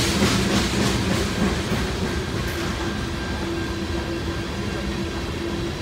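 Covered hopper cars of a freight grain train rolling past on steel rails: a steady rumble of wheels with a low hum, and quick clicks of wheels over rail joints in the first second and a half.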